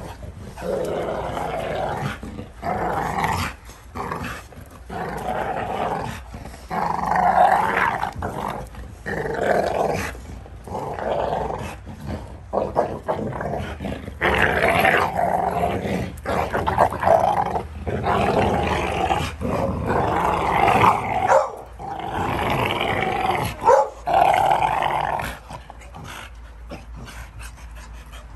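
American bully dogs growling while they wrestle, in repeated rough bouts of a second or two with short gaps, dying away near the end.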